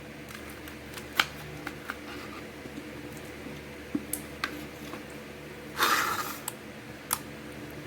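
Milk tea slime being worked by hand after activator was added: scattered sticky clicks and pops, with a louder squelch about six seconds in.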